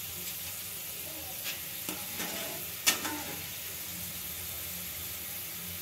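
Soaked chana dal deep-frying in hot oil with a steady sizzle. A few small clicks and one sharp knock nearly three seconds in.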